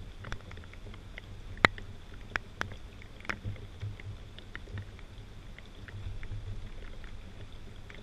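Wind buffeting the microphone as a steady low rumble during a rain and wind storm, with scattered sharp ticks of raindrops.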